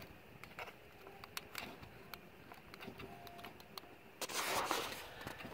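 Small clicks and scrapes of bent test wires being worked into the pins of a plastic wiring connector at the ignition coil, the wires not going in. About four seconds in there is a louder burst of noise lasting under a second.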